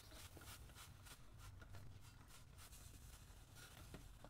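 Trigger spray bottle squirted repeatedly at a chrome motorcycle exhaust pipe: faint, quick hissing spritzes, about four a second, thinning out near the end.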